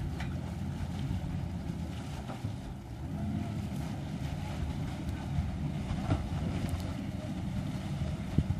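Outboard motor of a small motorboat running steadily, churning water at the stern as the boat is pushed off its launching trailer, with wind on the microphone.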